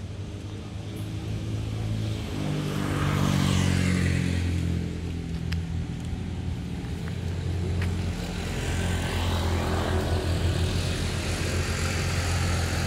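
Motor vehicles passing on a mountain road. A steady engine hum rises in pitch and swells as one vehicle goes by about three seconds in, fades, then swells again as another passes around ten seconds in.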